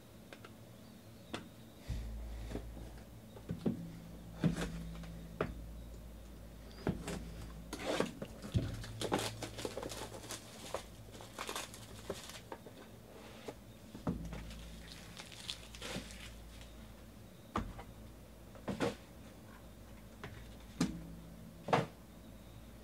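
Sports cards and their packaging being handled: rustling and crinkling, with scattered clicks and taps as cards and plastic card holders are picked up and set down. Several louder taps come near the end.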